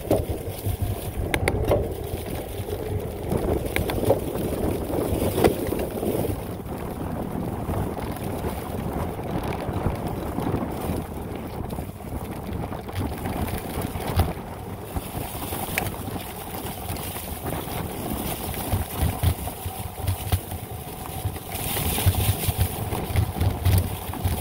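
Ride noise from a Specialized Turbo Levo electric mountain bike descending a dirt trail: wind rushing over the microphone, tyres rolling over dry leaves and dirt, and the bike clattering over bumps, louder and rougher near the end.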